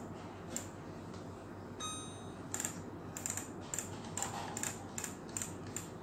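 Control dial of an LG microwave turned to set the cook time, clicking in quick steps a few times a second, with one short electronic beep about two seconds in.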